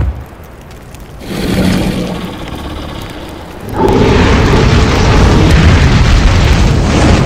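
Sound-effect dragon in an animated intro: a loud roar about a second in that fades out, then from about four seconds in a long, loud blast of fire breath with a deep rumble, like a sustained explosion.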